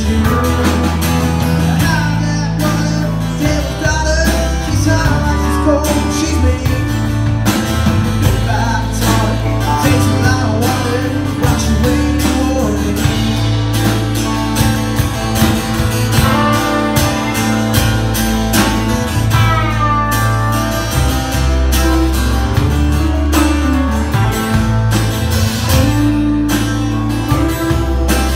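Live country-rock band playing an instrumental break: drums, bass guitar and a strummed acoustic guitar under a lead electric guitar line that bends and slides between notes.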